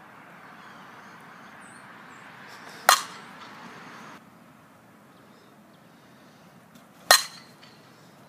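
Softball bat hitting a ball twice, two sharp cracks about four seconds apart, the second followed by a brief ring.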